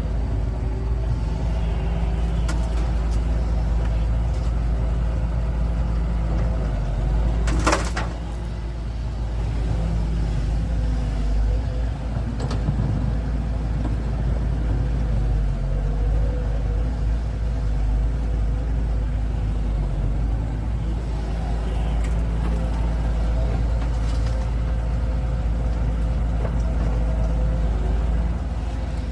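Heavy diesel engines of earth-moving machinery running steadily with a low drone, with one brief sharp noise about eight seconds in.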